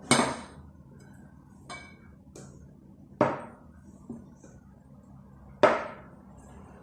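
Kitchenware knocking and clinking: glass measuring cups and a large mixing bowl set down or tapped against each other. There are three loud, sharp knocks, at the start, about three seconds in and near six seconds, with a couple of lighter taps between.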